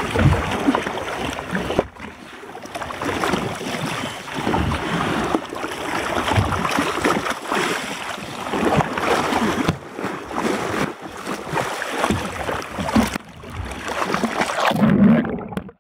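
Seawater splashing and sloshing against a boat's hull in irregular surges as a hooked marlin thrashes at the surface alongside.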